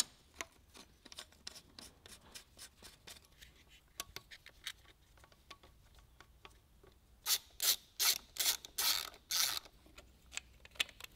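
Ratchet wrench clicking as the oil line's fitting is tightened onto the engine's crankcase. Faint, scattered clicks come first, then a quick run of about seven louder ratcheting strokes starting about seven seconds in.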